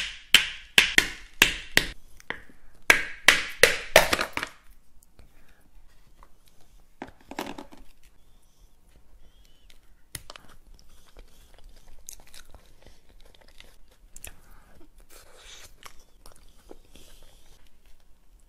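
A small wooden mallet knocks on the hard shell of a dome cake: about ten sharp cracking taps in two quick runs, then it stops. After that come softer crunches, clicks and scraping as a metal spoon breaks up the shell and digs into the cake and cream.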